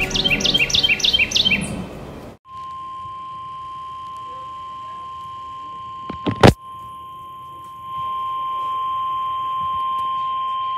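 NOAA Weather Radio 1050 Hz warning alarm tone: one steady, unwavering tone that signals an emergency message is about to follow, here a tornado watch. It is broken by a sharp, loud click about six and a half seconds in and gets louder about eight seconds in. Before it, a quick run of high chirps stops abruptly about two seconds in.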